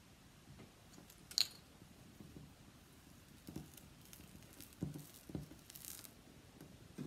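Faint sounds of hands working soft modelling clay on a tabletop: a sharp click about a second in, then a few soft, dull thumps and a brief rustle as the clay is lifted and handled.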